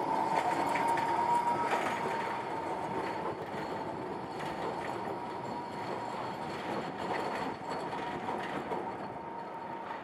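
Articulated low-floor tram rounding a curve and pulling away. Its wheels give a steady high squeal that is loudest in the first two seconds and then fades, over running rumble and scattered clicks from the rails. The sound grows gradually quieter as the tram moves off.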